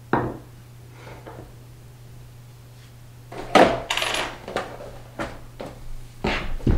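Glass tumblers and a plastic snack tray being knocked and slid about on a wooden tabletop, with a small metal coin clattering onto the wood and ringing briefly about three and a half seconds in. A single knock at the start, then a run of light knocks toward the end.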